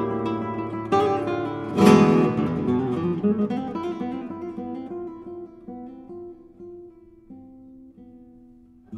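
Acoustic guitar music: two strummed chords about one and two seconds in, then single plucked notes that ring out and fade, growing quieter toward the end.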